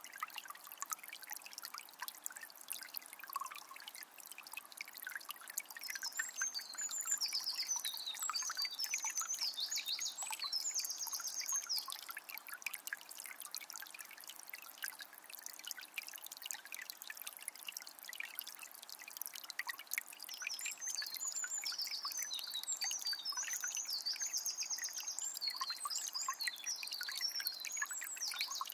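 Calm forest river trickling and splashing steadily, with a songbird singing two long warbling phrases, the first about six seconds in and the second about twenty seconds in.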